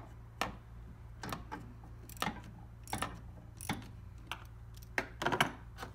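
A 10 mm socket wrench loosening a car battery's negative terminal nut: irregular sharp metallic clicks and clinks, about one or two a second.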